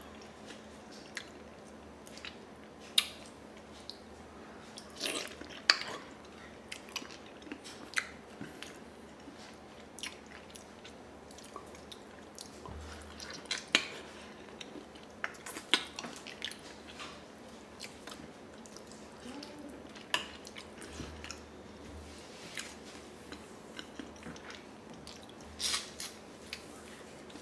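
Close-up mouth sounds of a person eating braised pig feet by hand: chewing, biting and sucking, with irregular wet smacks and clicks.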